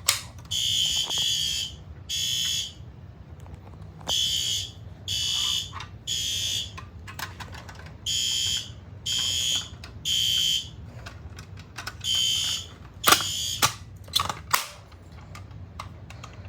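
Fire alarm horn sounding the temporal-3 evacuation pattern, set off by a manual pull station: three short, high-pitched honks, a pause, then the same again, over about four cycles. It cuts off a little after twelve seconds in, followed by a few sharp clicks.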